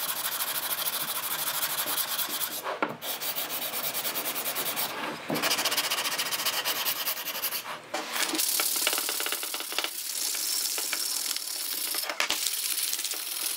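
Hand sanding an oak mallet head with a sanding block: sandpaper rasping back and forth over the wood in steady strokes, with a few short pauses. Near the end, a sheet of sandpaper is rubbed by hand along the wooden handle.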